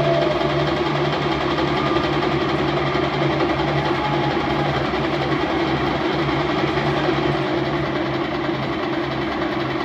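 Recorded helicopter sound effect played over a concert PA: a steady, evenly chopping rotor drone.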